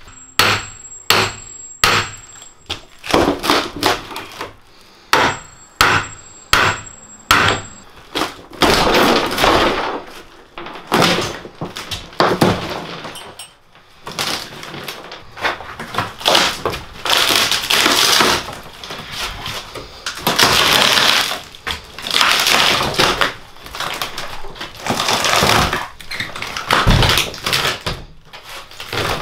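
Rotted plywood subfloor being pried and torn up off a bus's metal floor. A quick run of sharp knocks comes first, then long splintering, crunching tears as the sheets break away.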